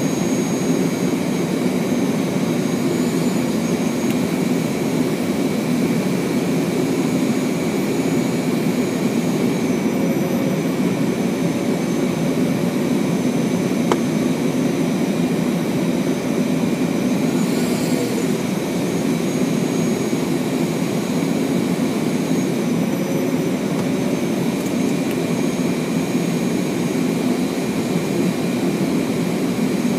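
Steady flight-deck noise of a Fokker 100 on final approach: airflow rush and the hum of its rear-mounted Rolls-Royce Tay turbofans. A thin high whine runs through it and rises briefly twice, a few seconds in and again past the middle.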